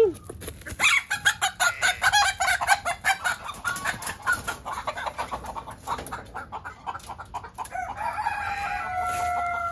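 Long-tailed chickens clucking in quick, busy runs; about eight seconds in a rooster crows, one long drawn-out call that sinks slightly in pitch.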